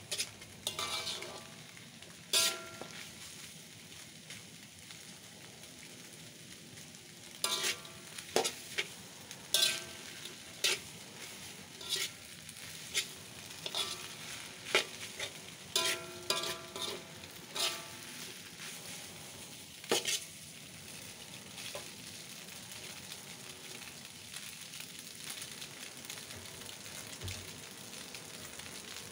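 Noodles frying in a hot wok with a steady sizzle. A slotted metal spatula scrapes and knocks against the metal wok as the noodles are tossed and stirred, with the knocks most frequent in the middle stretch.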